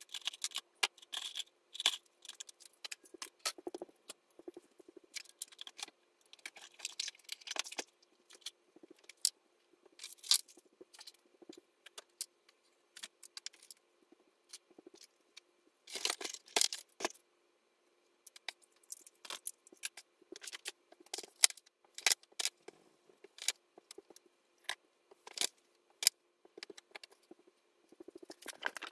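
Small objects being handled and set down while a sewing table is tidied: irregular clattering, clicks and knocks of hard items, with a few busier rattling stretches. A faint steady hum runs underneath.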